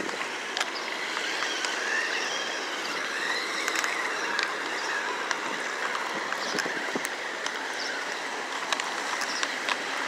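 Electric motor of a small toy-grade RC off-road buggy whining as it drives over brick pavement, its pitch rising and falling with the throttle, with scattered light clicks.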